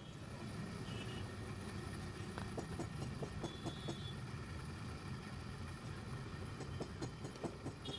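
Scattered light clicks and taps of a hand blender being handled and taken apart by hand, starting about two and a half seconds in, over a steady low background rumble.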